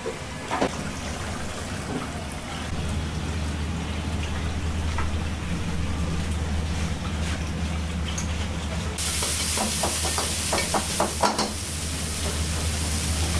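A steady low hum, then about nine seconds in a loud sizzle starts as food goes into a hot wok, with a ladle clattering against the wok.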